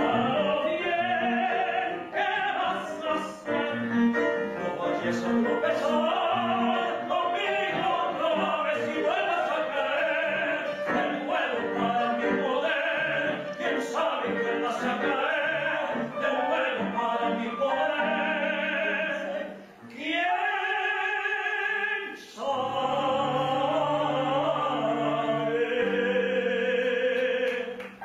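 Male voice singing in operatic style with vibrato, accompanied by piano, with a long held note about twenty seconds in.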